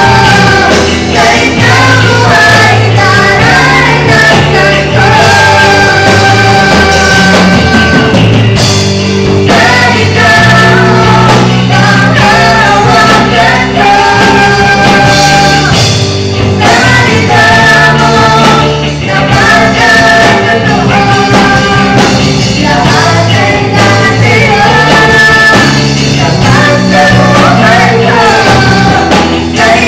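A worship song sung loudly by three vocalists, two women and a man, into microphones, over instrumental accompaniment with steady low notes that change every second or two.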